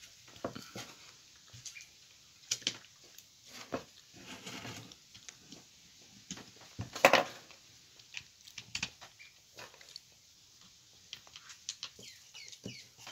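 Handling noise from reassembling a corded drill on a wooden bench: scattered clicks and knocks of its plastic housing and a screwdriver, with one louder knock about seven seconds in.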